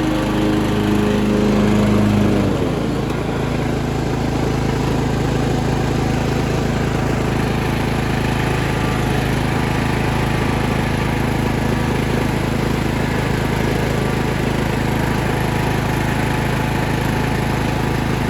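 16 hp Briggs & Stratton Intek engine of a Mastercraft hydrostatic riding lawn mower running steadily. Its note changes and drops slightly in loudness about two and a half seconds in.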